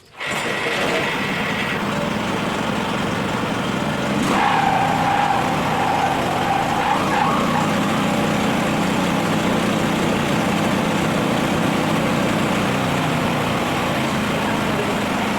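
Engine of a horizontal band sawmill running steadily. About four seconds in, a whine rises over it and lasts about three seconds.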